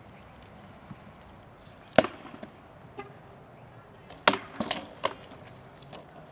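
Rattan swords striking wooden shields and armour in sword-and-shield sparring. A single sharp crack comes about two seconds in and a lighter knock a second later, then a quick flurry of four or so blows just after the four-second mark.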